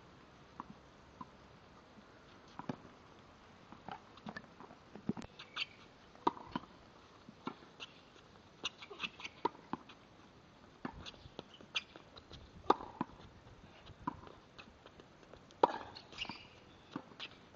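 Tennis balls being hit with rackets and bouncing on a hard court: irregular sharp pops, about one or two a second, with a few brief high squeaks among them.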